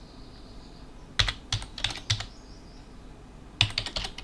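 Typing on a computer keyboard: two quick runs of key clicks, one about a second in and another near the end, with a pause between.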